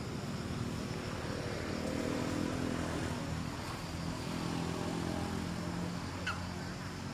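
A motor engine droning with a steady pitched hum, swelling about two seconds in and again near five seconds. A short high chirp sounds about six seconds in.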